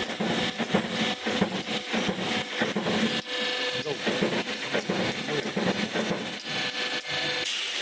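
Steel stud roll forming machine running, a punched light-gauge steel stud profile feeding through its forming rollers: a steady machine hum under constant metallic clatter and rattling.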